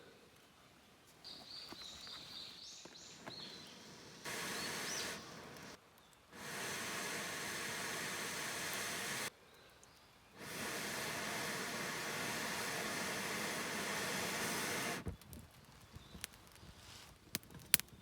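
A few high bird chirps in the first seconds, then a steady hiss that starts and stops abruptly three times, with a few sharp clicks near the end.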